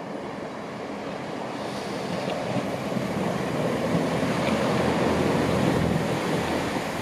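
BR Class 165 Networker Turbo diesel multiple unit approaching and running beneath, its underfloor diesel engines and wheels on the rails growing steadily louder. It is loudest about five to six seconds in.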